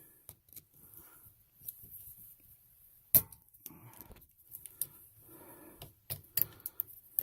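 Scattered clicks and light taps of hand tools and crimped wire connectors being fitted onto a well pressure switch's terminals. One louder click comes about three seconds in, and a quick run of clicks comes near the end.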